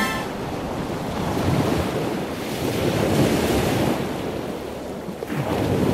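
Ocean waves washing in a steady rush that swells about halfway through, eases, and swells again near the end.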